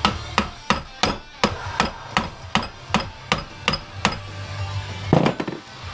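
A hammer tapping a screwdriver through the centre of a small transformer to drive out its copper winding. There are about a dozen sharp, evenly paced strikes at about three a second, then a single duller knock near the end.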